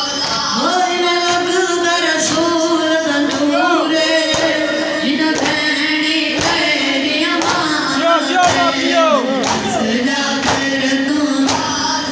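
A noha, a Shia mourning elegy, sung in a long melodic line with held notes, while a crowd of mourners strike their chests in unison about once a second (matam).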